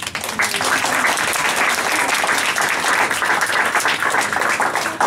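Audience applauding. The clapping starts suddenly and falls away right at the end.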